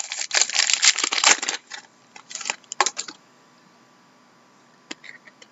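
Trading cards being handled: rapid rustling, scraping and clicking of card stock and packaging for about the first three seconds, then quiet with one sharp click near the end.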